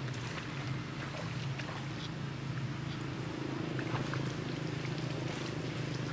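Steady rush of a fast-flowing muddy river, with a low steady hum underneath and faint scattered ticks.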